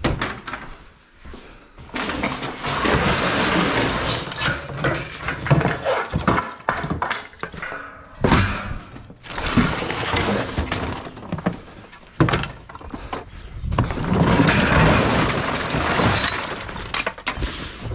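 Broken lath-and-plaster debris clattering and crunching as it is dumped and shifted into the load, in three long bouts of crackling, rattling noise.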